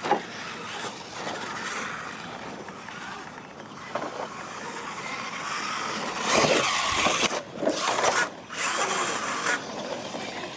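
Radio-controlled monster trucks racing on dirt: their electric motors and gears whine, rising and falling in pitch as the throttles are worked. The whine is loudest from about six to eight and a half seconds in.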